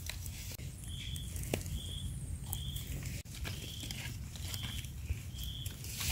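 An animal's short, high call repeated about once a second, over scattered crackles and rustles like steps and handling in dry leaf litter.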